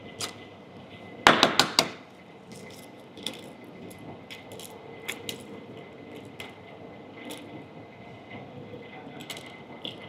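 Egg shell knocked about four times in quick succession against a hard surface to crack it, then light scattered clicks and crackles as the broken shell is picked off by hand.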